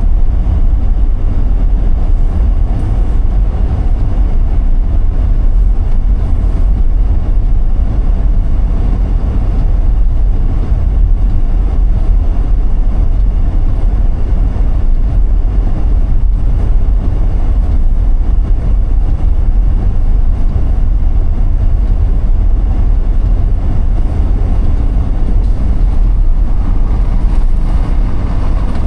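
A car driving: steady low rumble of road and tyre noise with engine hum.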